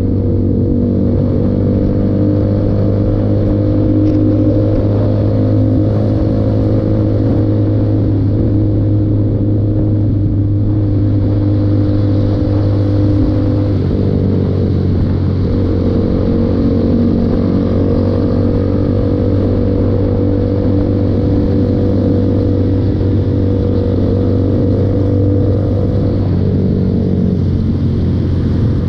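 Motorcycle engine running at steady cruising revs under wind noise. The engine note drops and picks up again about halfway through, and drops once more near the end.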